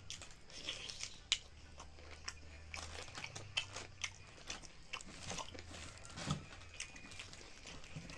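Close-up eating sounds of chicken tangdi kabab being bitten and chewed: irregular wet smacks and crunchy clicks, with one sharp louder click about a second in.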